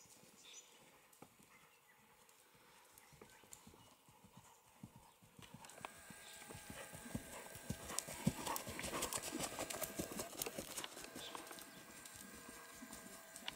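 Hoofbeats of a ridden Friesian horse on sand arena footing, faint at first and growing louder from about halfway through as the horse comes close.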